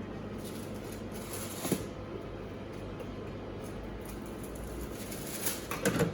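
Steady background hum of a shop interior, with a single sharp knock a little under two seconds in and a brief cluster of small sounds near the end.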